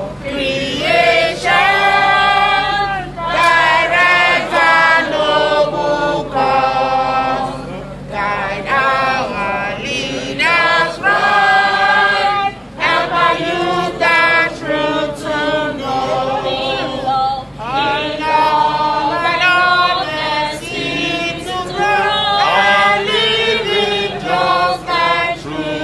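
A crowd singing together in chorus, many voices holding long notes in phrases with short breaks between them.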